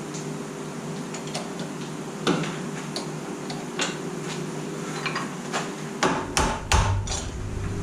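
Hammer blows on a cylinder head clamped in a milling-machine vise, tapping the part down to seat it: a few separate knocks, then a quick run of louder blows near the end, over a steady low hum.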